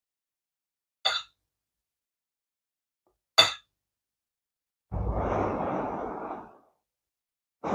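A woman blowing on a forkful of hot food to cool it: one breathy blow of about a second and a half, starting about five seconds in. Before it come two short sharp clicks, about a second in and about three seconds in.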